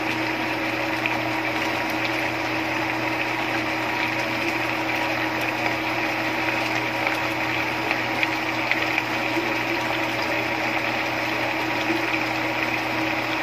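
Chicken liver adobo simmering in a pot, with small bubbling pops over a steady mechanical hum.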